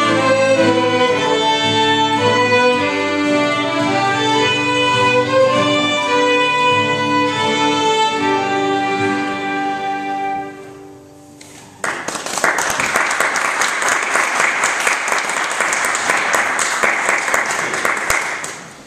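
Folk waltz played on fiddle, flutes and accordion, closing on a held chord that dies away about ten seconds in. After a short pause, an audience applauds for about six seconds.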